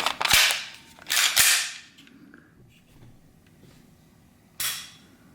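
Sig Sauer P320 pistol being handled as a snap cap is loaded and the gun readied: sharp metallic clacks with sliding scrapes. There are two loud bursts in the first two seconds and a shorter one near the end.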